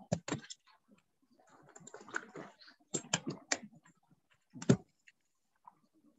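Scattered sharp clicks and taps with a little rustling, the loudest a single knock about four and a half seconds in.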